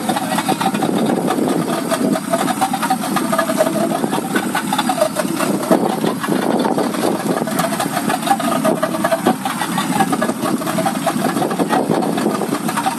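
Motorboat engine running steadily at low speed, with a steady rush of wind and water over it.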